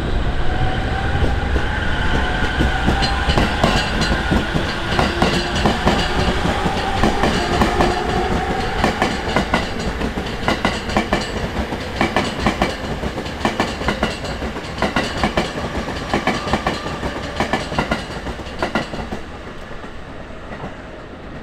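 JR East E231-series electric train with a Mitsubishi IGBT-VVVF inverter pulling away from a station. Its motor whine rises in pitch as it gathers speed over the first ten seconds or so, while the wheels clack steadily over the rail joints. The sound then fades gradually as the train moves off.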